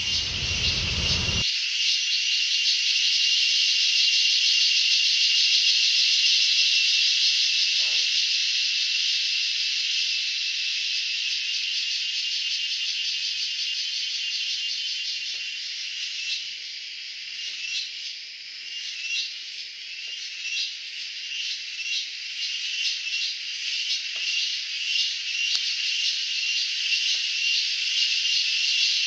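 Shrill forest insect chorus droning steadily, breaking into fast pulsing trills about halfway through.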